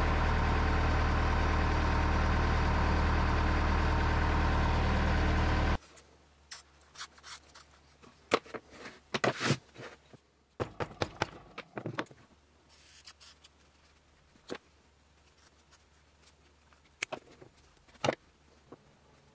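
A diesel engine idling steadily, cutting off suddenly about six seconds in. Then scattered small taps, scrapes and snips of hand tools working a piece of rubber on a wooden workbench.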